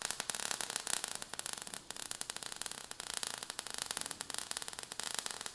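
Sound effect of crackling, sizzling sparks: a dense run of tiny crackles over a steady hiss.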